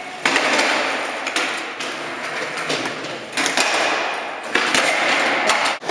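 Skateboard wheels rolling on a concrete floor, a steady rushing noise, broken several times by sharp knocks of the board's tail popping and the deck slapping down.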